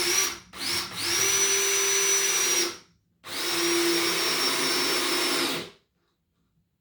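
Drill driver driving long screws through 3/4-inch plywood into the wooden frame below. It gives a quick trigger burst, then two runs of about two seconds each, the motor whine rising as each run starts, and it stops a little under six seconds in.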